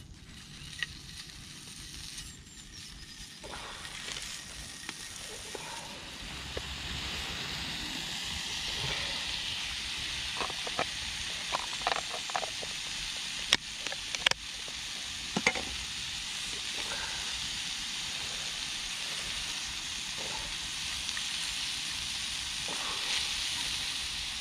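Bacon and mushrooms sizzling as they fry in a non-stick pan over a gas camping stove. The sizzle builds over the first several seconds and then holds steady. A few sharp clicks and taps sound against the pan around the middle.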